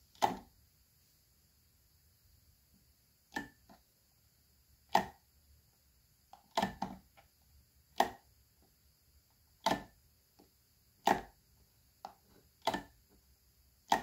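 A wall toggle light switch being flipped back and forth, each flip a sharp click. There are about ten in all, at uneven gaps of a second or so, with a couple coming as quick double clicks.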